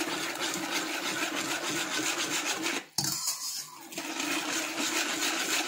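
Wire balloon whisk beating thin liquid (warm milk with sugar and yeast) in a bowl: fast, even scraping strokes of the wires against the bowl, with a brief break about three seconds in.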